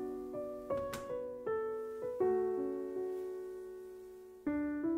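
Background music: gentle solo piano playing struck notes and chords that ring and fade. One chord is held for about two seconds before a new chord comes in near the end.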